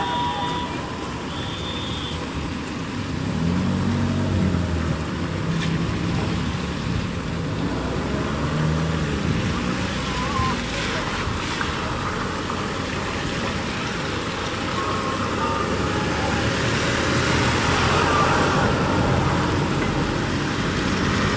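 Steady low outdoor rumble, like distant traffic, with men's voices calling out a few times.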